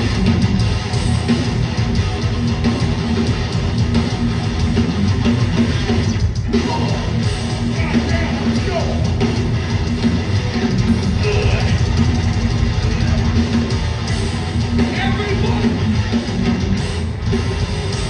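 Live hardcore punk band playing loud: electric guitar and drums driving a fast song at full volume through the PA.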